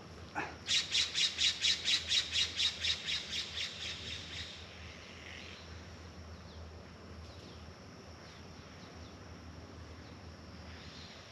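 A bird calling a rapid series of about twenty harsh, squawking notes, about five a second, that fade away after about four seconds. Faint short chirps follow.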